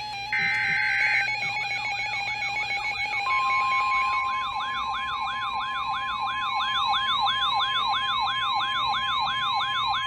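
The last burst of an EAS/SAME digital header, a short buzzing data squawk, is followed by several electronic alert alarms. Fast rising-and-falling siren-like warbles start about a second in, and a steady 1050 Hz weather-radio warning tone joins about three seconds in. Together they mark the start of a tornado warning broadcast.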